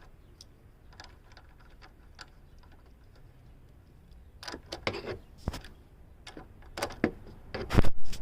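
Small ratchet clicking as the 10 mm nut on the car battery's negative terminal clamp is turned, with several louder knocks in the second half.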